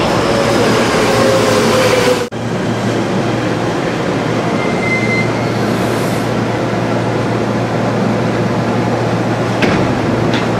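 Tokyo Metro 6000 series electric train running into the platform with a slightly falling whine as it slows, broken off abruptly about two seconds in. Then a steady hum from a train standing at the platform with its doors open, with two short clicks near the end.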